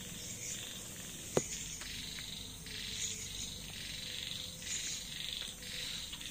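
Night insect chorus: a dense high chirring that swells and fades in patches, with one sharp click about a second and a half in.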